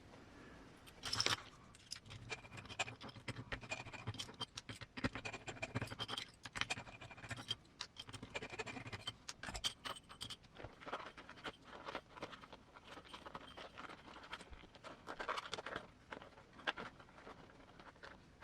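Hands working an RC crawler tire and beadlock wheel: irregular scratching, scraping and light clicks of rubber, foam and small parts being handled.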